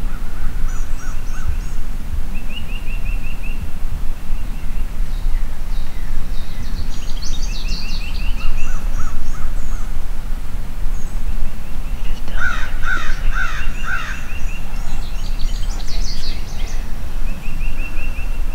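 Several songbirds singing and trilling in the woods, with one bird giving four loud calls in quick succession about two thirds of the way through, over a steady low rumble.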